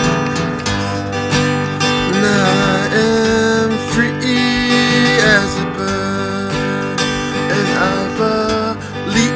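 Steel-string acoustic guitar strummed steadily, with a few long, wavering sung notes over it.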